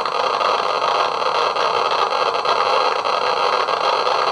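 Eberline E-140 Geiger counter's speaker clicking so fast that the clicks run together into a steady, dense crackle. Its pancake probe is held on uranium ore, which reads about 4 to 5 millirem per hour.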